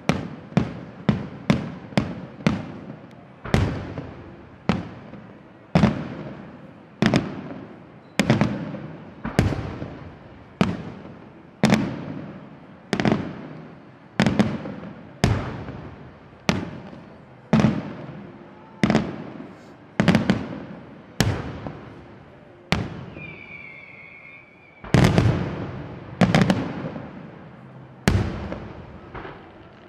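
Aerial firework shells bursting one after another, each bang echoing away: quick bangs at first, then about one a second. A brief whistling tone comes about three quarters of the way through, just before a pair of the loudest bangs.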